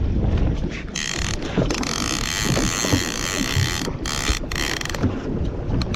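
A fishing reel running with a mechanical ratcheting whir that starts about a second in and stops near the end, over a low rumble.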